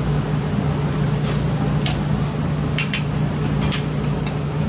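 Street-food stall cooking noise: a steady low mechanical hum over a hiss, with a handful of short, sharp clinks of metal cooking utensils scattered through.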